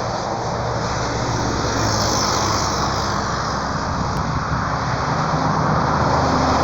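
Steady road traffic noise, a continuous rush of passing vehicles with a low engine rumble underneath.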